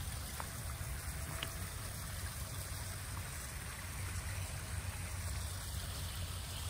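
Steady running and trickling water of a backyard koi pond with its circulation running.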